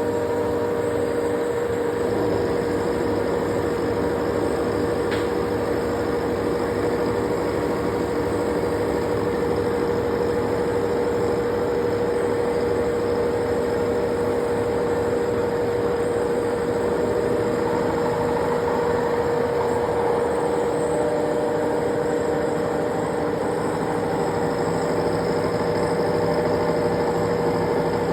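Milling machine running steadily while milling an internal contour, its spindle giving a steady whine over a continuous mechanical hum.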